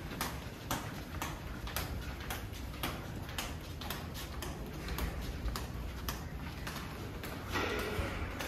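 Steady, evenly spaced ticking, about two to three clicks a second, over a low rumble.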